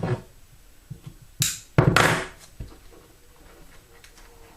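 Masking tape being pulled off a wiring harness: a soft knock, then a short rip about a second and a half in and a longer, louder rip just after, followed by light handling of the wires.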